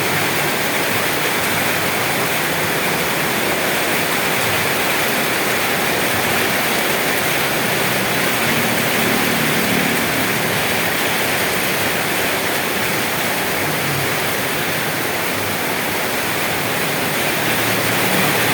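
Steady heavy rain, a dense even hiss that holds without pause, with a faint low rumble underneath now and then.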